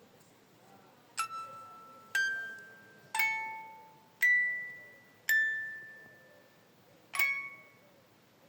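Six bell-like chime notes at different pitches, struck about once a second with a longer gap before the last, each ringing out and fading like a glockenspiel melody.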